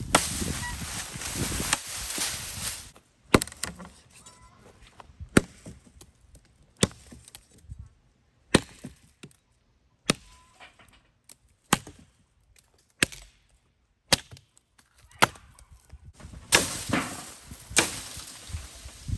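Axe chopping into downed leafy branches, about ten sharp strikes roughly every one and a half seconds. Branches and leaves rustle for the first few seconds and again near the end.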